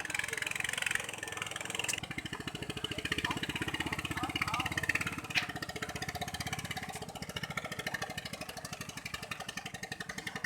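Small katinting longtail-boat engine running with a steady, even firing beat that becomes plainer about two seconds in.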